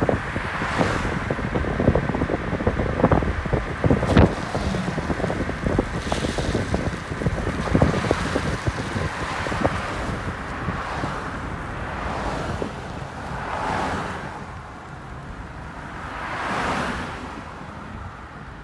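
Wind buffeting a phone microphone from a moving car, over a steady rush of road noise. The buffeting eases in the second half, and two swelling whooshes rise and fall near the end.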